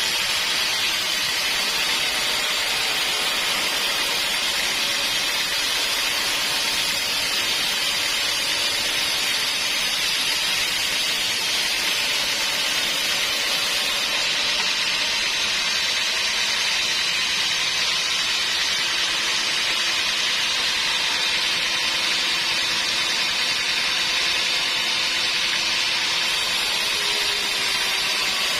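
Sawmill machinery running steadily: an even, continuous noise with a faint hum that drifts a little in pitch.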